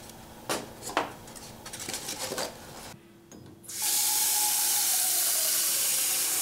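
A few light knocks and clicks as a bamboo steamer is lifted off a pegboard hook. Then, after a short pause, tap water runs steadily into a metal pot, a loud even rush.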